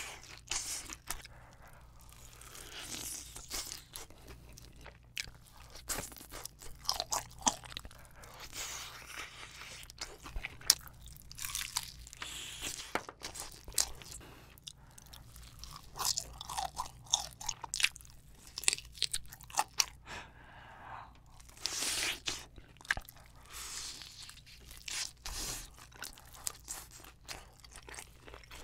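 Close-miked biting and chewing of crispy fried chicken coated in thick spicy sauce: irregular crunches of the fried crust between stretches of chewing.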